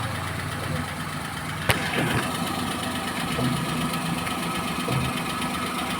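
Maruti Suzuki Alto 800's three-cylinder engine idling while the steering is turned, with one sharp click about 1.7 s in and a few fainter ticks right after from the front strut, whose spring turns in jerks rather than smoothly. The click is the sign of a worn shock mounting.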